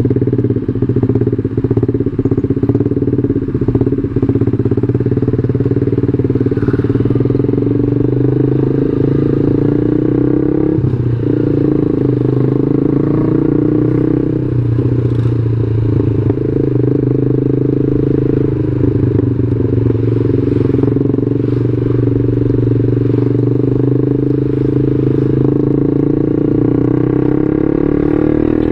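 Yamaha New Jupiter MX 135 motorcycle's single-cylinder four-stroke engine running under way, steady and loud, with brief breaks in its note a few times and its pitch rising near the end as it picks up speed.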